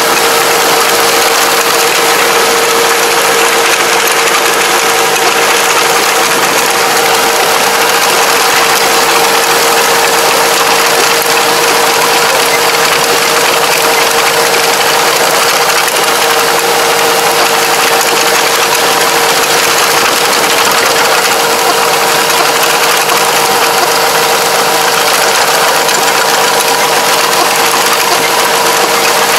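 Tractor engine running steadily under load, driving a rear-mounted Kobashi Gaia XRS751 levee plastering machine as it works along a paddy levee. The result is a loud, even mechanical drone with a constant hum running through it.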